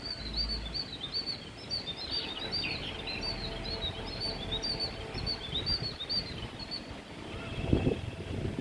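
A bird chirping in a rapid series of short, high notes, about three or four a second, stopping about seven seconds in. Breeze rumbles on the microphone and gusts near the end.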